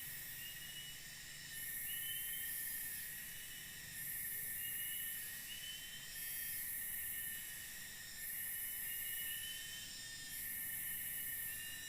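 Forest insect chorus: a steady high drone with a very high hissing buzz that swells and fades about every two and a half seconds, and short rising chirps repeating over it.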